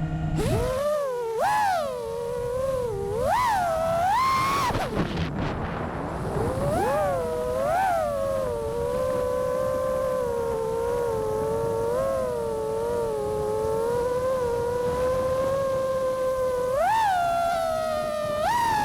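FPV quadcopter's brushless motors (Vulcan Innovation 2207, 2100 kV) whining with the props, the pitch surging up and down as the throttle is worked. There are quick upward swoops several times, a deep dip about five seconds in, a long fairly steady stretch, and another surge near the end.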